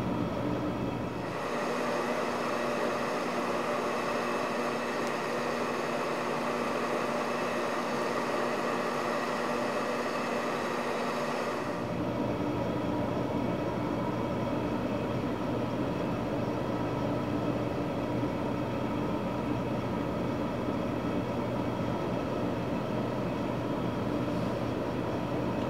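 Steady machine hum with hiss and no speech. Its tone changes about a second in and changes back about twelve seconds in.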